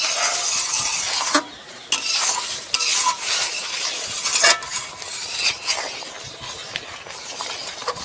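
A metal spatula stirring boiling moong dal in a kadai, scraping and knocking against the pan several times, over a steady hiss.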